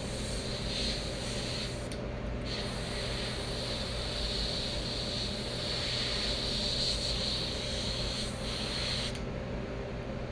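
Airbrush spraying in a steady hiss, pausing briefly about two seconds in and stopping near the end, over the steady hum of an air compressor.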